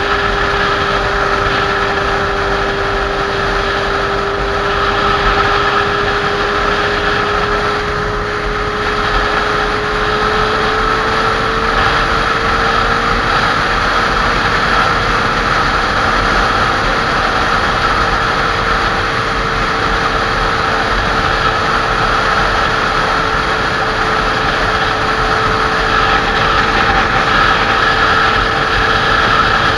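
Motorcycle riding at steady speed, its engine running under a constant drone, with wind and road noise. The engine's pitch rises slightly about ten seconds in and then holds.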